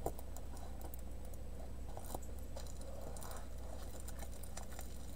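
Clear plastic wrapping of a diamond painting canvas crinkling and rustling as it is handled and laid flat, with scattered light clicks and taps. A low steady hum sits underneath.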